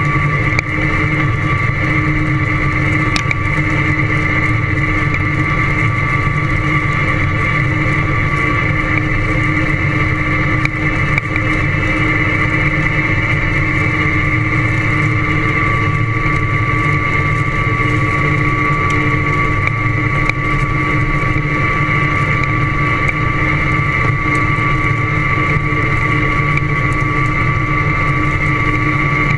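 Farm tractor running at a steady pace through corn stubble: a constant low engine rumble with a steady high-pitched whine over it, unchanging throughout, with one faint click about three seconds in.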